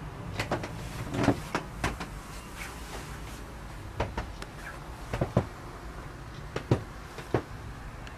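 Scattered light knocks and clicks at irregular intervals, over a low steady hum.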